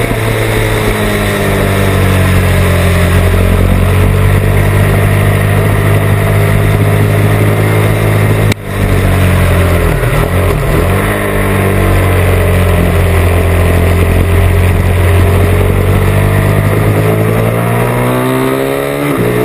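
KTM RC8's V-twin engine at speed on track, with wind rushing past the onboard microphone. The engine note holds and slowly sags, breaks off for a moment about eight and a half seconds in, and dips around ten seconds as the bike slows. It then climbs steadily under hard acceleration, with a drop in pitch at a gear change near the end.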